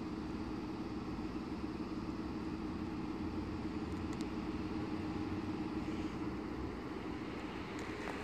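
Electric train approaching from a distance: a steady low hum with a held tone over an even rumble.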